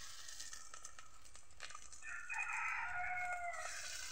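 Fish-roe pakora batter sizzling in hot oil in a wok, and about two seconds in a rooster crows once, a call lasting under two seconds that is the loudest sound here.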